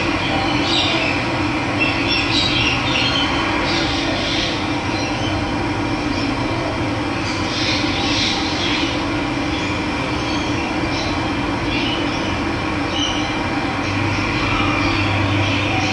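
Steady rushing of running water, with birds chirping now and then above it.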